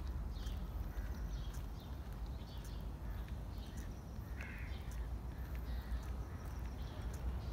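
Outdoor birds giving short, scattered calls every second or so over a steady low rumble.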